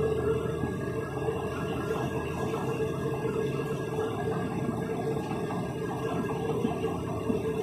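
Steady mechanical hum with one constant mid-pitched tone over a noisy background drone.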